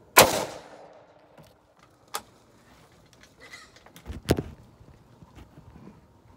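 A single .270 rifle shot fired at a hog, a sharp crack with a short ringing tail. A sharp click follows about two seconds later, and a cluster of knocks about four seconds in.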